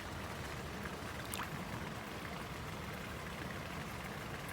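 Shallow creek water running steadily, a continuous even rush, with one faint click about a second and a half in.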